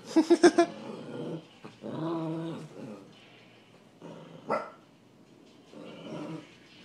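A Chihuahua growling and barking: a quick run of short, sharp barks at the start, then low growls about two seconds in and again near the end, with a single sharp bark about four and a half seconds in.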